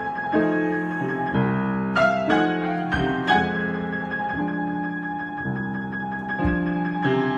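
Piano improvisation: chords changing every second or so, with a quick run of high notes about two seconds in, over a steady high tone held throughout.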